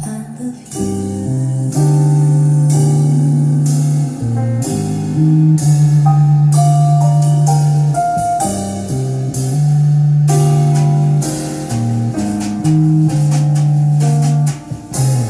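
Recorded music played through a pair of Tannoy Canterbury SE loudspeakers: an instrumental passage of held low notes and a higher melody line, with drum hits.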